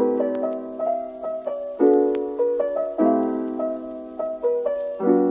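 Background piano music: chords struck every second or two with a light melody on top.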